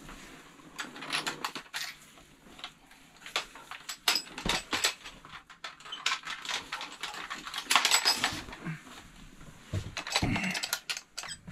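Irregular clinks, rattles and knocks of fishing gear being handled on a boat deck, with short metallic clatters scattered throughout.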